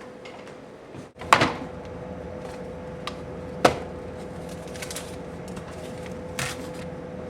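Refrigerator door opening with a sharp knock about a second in, followed by a steady hum and two more knocks.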